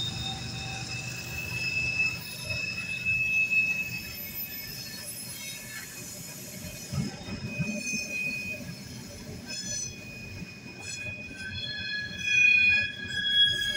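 Norfolk Southern coal hopper cars rolling past on a curve, their steel wheels squealing against the rails in several shifting high-pitched tones over the low rumble of the wheels. The flange squeal comes from the cars taking the curve and is loudest near the end.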